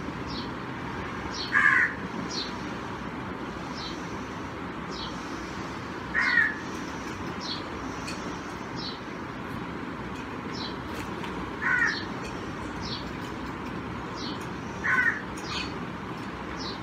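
A crow cawing, four single short caws a few seconds apart, with faint chirps of small birds in between over a steady background noise.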